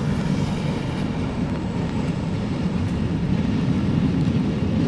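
GE U11B diesel locomotive working under load as it hauls a work train: a steady low rumble.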